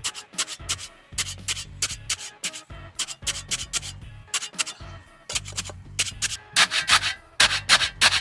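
Quick, repeated scraping and jabbing strokes in wet concrete as it is tamped into a footing hole to work out the air pockets, getting louder in the last second and a half.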